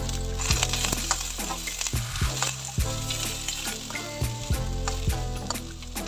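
Chopped onions sizzling in hot oil in a wok, with a spatula scraping and knocking against the pan as they are stirred, several strokes a second.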